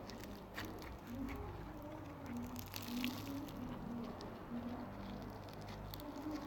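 Hand-played slime being squeezed and poked, giving soft squishes with many small crackling pops and clicks.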